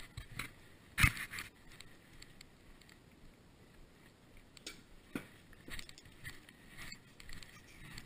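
Handling of hand tools from a ratchet and socket set on a workbench: one sharp knock about a second in, then a few light scattered clicks.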